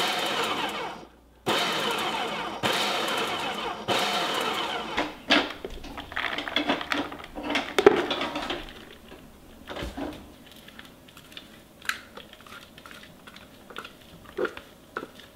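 Electric food processor chopping king oyster mushrooms in about four short pulses, each about a second long, the motor winding down after the first. After that come irregular clatters and light knocks as the chopped mushroom is emptied from the processor bowl into a plastic tub.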